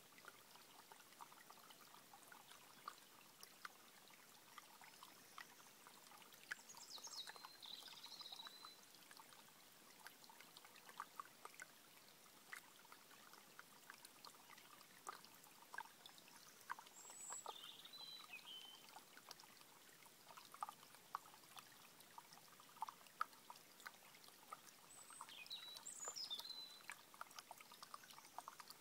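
Faint trickling and plinking of a shallow stream running over stones. A songbird sings short, high phrases four times, several seconds apart.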